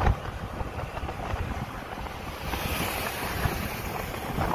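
Wind rushing over the microphone of a TVS Scooty Pep+ scooter on the move, with the scooter's small engine running beneath it. The rushing grows louder about halfway through.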